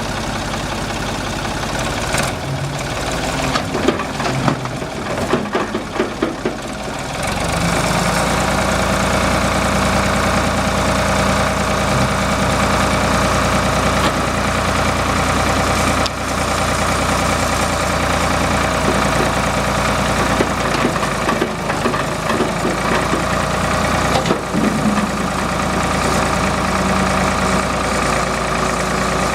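Ford 4500 tractor loader backhoe engine running. For the first several seconds it is uneven, with irregular knocks. About seven seconds in it settles into a steady idle.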